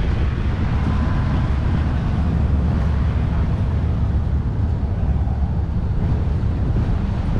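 Tractor engine idling steadily close by, a low, even rumble.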